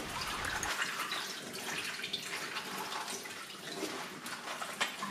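Wet napa cabbage leaves squeezed and turned by hand in a stainless-steel mesh colander, with water dripping off them as the rinsed cabbage drains. Soft, steady handling noise with many small wet clicks.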